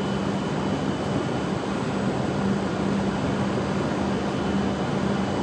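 Steady rumble and hum of shinkansen trains in the station, with a low drone that comes and goes. The arriving train is not yet in sight.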